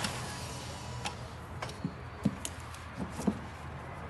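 A car engine cuts off at the start, leaving a low steady hum and about seven scattered light clicks and taps over the next few seconds.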